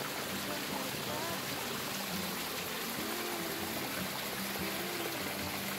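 Running water flowing with a steady rush.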